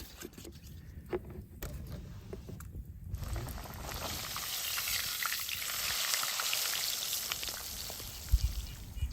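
Food frying in hot oil: a sizzling hiss that swells in about three seconds in and holds, with low rumble and a few clicks before it and a couple of low thumps near the end.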